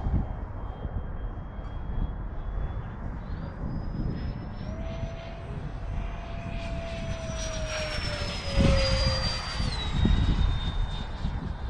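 80 mm nine-blade electric ducted fan of a 3D-printed Fun Jet model whining in flight. The whine steps up in pitch about three seconds in, grows louder as the jet passes close about eight seconds in, then drops in pitch. Wind rumbles on the microphone throughout.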